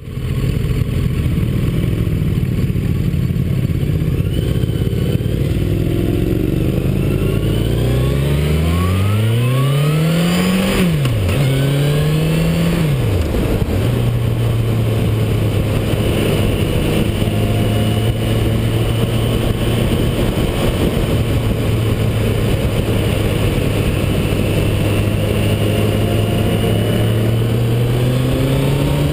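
Motorcycle engine running steadily, then accelerating hard: the pitch rises and drops sharply twice, two quick upshifts about a third of the way in. It then settles into a steady cruise, with wind noise throughout.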